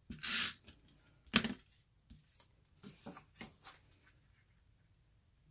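Snail adhesive tape runner drawn along the edge of a cardstock layer with a short rasping hiss. About a second later there is one sharp click, the loudest sound, followed by a few soft taps and paper rustles as the layer is pressed into place on the card.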